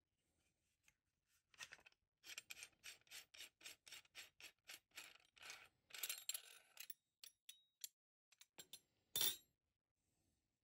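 Threaded brass end cap of a Monarch 400 amp renewable cartridge fuse being unscrewed by hand: a run of faint, short metal-on-metal scraping strokes, about three a second, followed by a few light ticks and one louder knock near the end.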